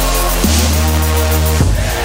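Electronic background music with heavy sustained bass notes that shift pitch about every second, each change marked by a drum hit.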